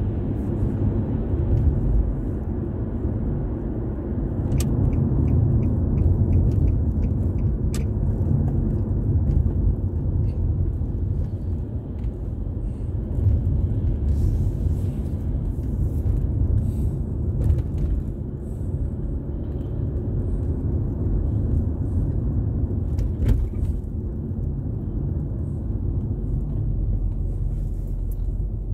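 Car driving along a road, heard from inside the cabin: a steady low rumble of engine and tyre noise, with a few faint sharp clicks.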